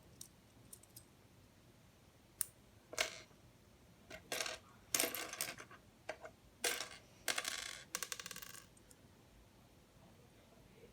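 Small plastic LEGO Technic pieces clicking and clattering as they are handled. A few single clicks come first. Then there are several bursts of clatter, the last a quick rattling run of pieces lasting over a second.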